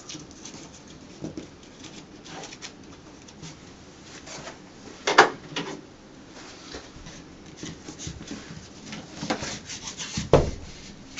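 Peel-and-stick mural material being rubbed and pressed against the wall by hand, scattered rustles and small clicks, with two sharper knocks, one about five seconds in and one near the end.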